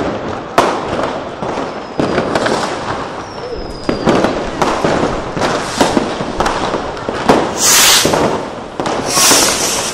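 Consumer fireworks and firecrackers going off all around: sharp bangs every second or so, a rocket's falling whistle about three seconds in, and two loud hissing bursts near the end.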